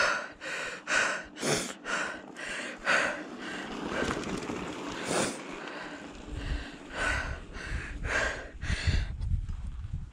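A mountain biker breathing hard, quick rhythmic breaths about two a second. A low rumble comes in about six seconds in.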